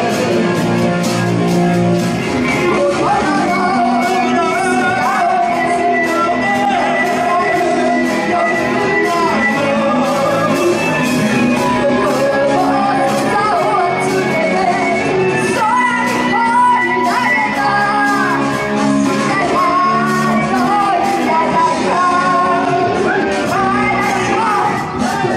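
A rock band playing live, with a lead vocal sung over the band.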